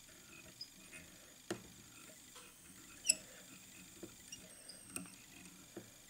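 Faint scattered clicks and scratches of fly-tying handling: fingers and a bodkin working the thread on a hook clamped in pliers. Two louder ticks come about a second and a half apart.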